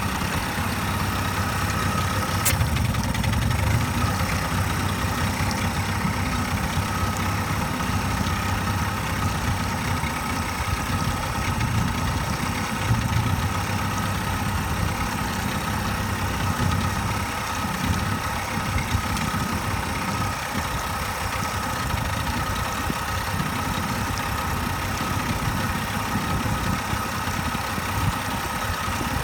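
1998 Mercury 40 hp two-stroke outboard motor idling roughly and unevenly, with a single sneeze.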